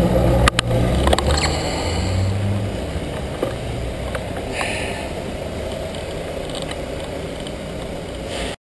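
Street traffic heard from a bicycle camera: a lorry's diesel engine rumbling close by for the first two or three seconds, then steady road noise that slowly fades. There are a few sharp clicks about half a second and a second in, and a short hiss about four and a half seconds in.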